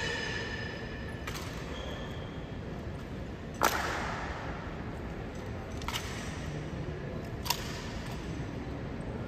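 Sharp clacks echoing in a large stone hall, one every second or two, the loudest about three and a half seconds in: honour guards' boot heels and rifle butts striking the marble floor in drill.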